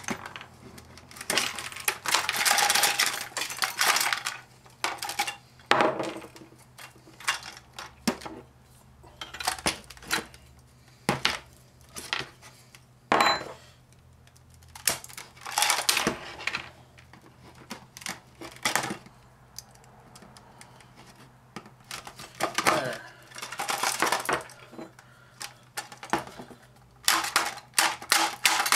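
Clattering and clinking of a cake mixer's plastic housing and small metal parts as it is pried apart by hand and with pliers, in irregular bursts with pieces rattling and dropping. A quick series of sharp knocks comes near the end.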